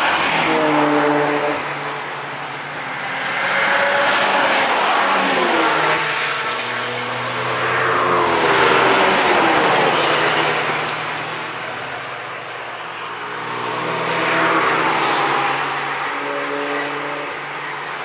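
Cars driving past at speed one after another, about four passes in all, each engine swelling up and fading away with its pitch rising and dropping through gear changes.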